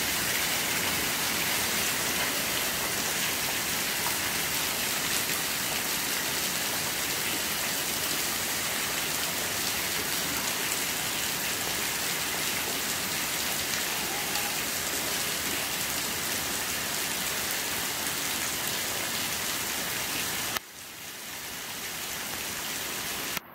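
Heavy rain pouring down and splashing on flooded paving, a steady dense hiss of drops. About twenty seconds in it drops suddenly to a quieter level.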